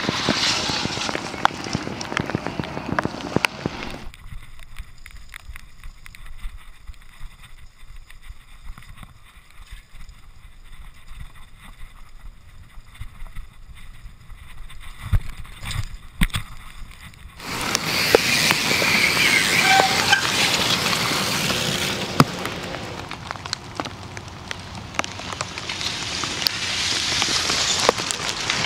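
Cyclocross bike ridden over a wet, rough course, heard from a camera mounted on the bike: tyre and wind noise with frequent knocks and rattles. The noise drops much quieter for a long stretch in the middle while the bike passes through a dark tunnel, then the loud steady hiss with knocks comes back.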